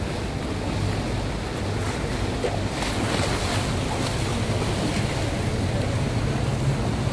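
Steady wash of canal water and a low boat-engine hum, with wind on the microphone. The hiss of water swells about three seconds in as a motor launch passes close by.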